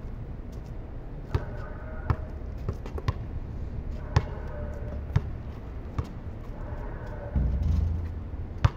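A basketball bouncing on a concrete court as it is dribbled: single sharp bounces at uneven spacing, about one a second. A short low rumble comes near the end, then the loudest hit.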